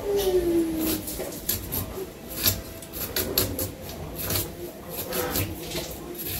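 Scissors snipping through bitter gourd, a dozen or so short crisp cuts at an uneven pace of about two a second.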